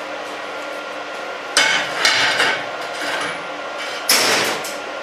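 Steel weld test coupon of 3/8-inch plate knocked and set down on a steel welding table: metal clanks and scrapes, two about a second and a half and two seconds in, and a sharper clank about four seconds in.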